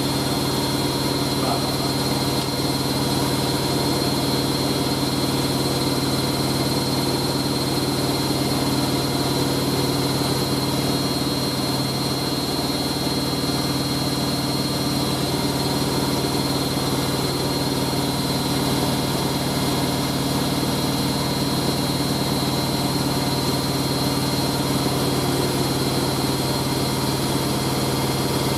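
Hoover A3060 washing machine on its final spin at high speed, running steadily, with a constant motor hum and a fixed whine throughout.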